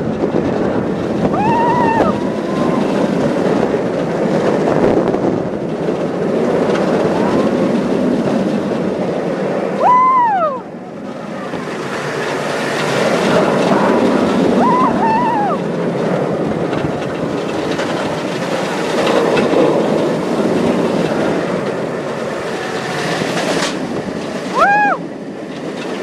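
Bolliger & Mabillard giga coaster train running along its steel track, a steady rumble of wheels and rushing wind that swells and eases with the ride. Four times a rider lets out a short cry that rises and then falls in pitch.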